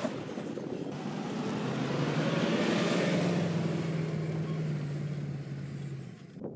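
Range Rover P38's 4.6 V8 engine pulling the truck up a dirt slope at a steady pull, with tyre and wind noise. It grows louder toward the middle, eases off, and cuts off suddenly just before the end.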